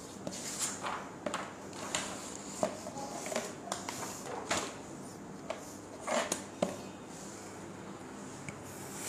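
Scattered light knocks, clicks and brief rustles, irregularly spaced, from small objects being handled.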